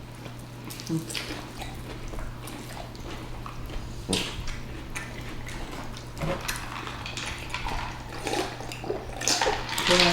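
People eating chicken wings and pasta salad close to the microphone: wet chewing and mouth sounds with scattered short clicks of cutlery and dishes, growing busier near the end, over a steady low hum.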